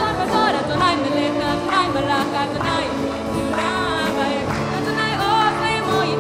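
Worship music: several voices singing a song over sustained instrumental accompaniment, with the singers' pitches held and wavering.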